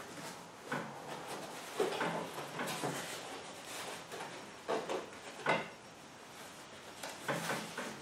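Handling noise from a soft insulated cooler bag being shifted about on a pink foam insulation board: irregular rustles, scrapes and soft knocks.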